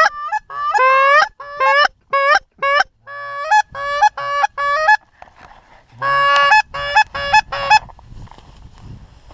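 Geese honking: a rapid series of short, loud, high calls that rise slightly in pitch, about three a second for the first five seconds, a pause of about a second, then another run that fades out before eight seconds in.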